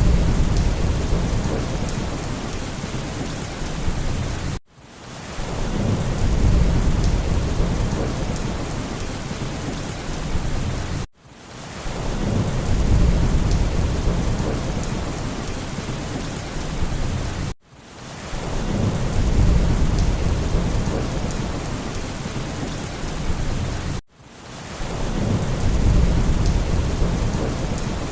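Steady rain with low rolling thunder. The recording loops about every six and a half seconds: each time it cuts out briefly, then swells back with a burst of rumble before settling into steady rain.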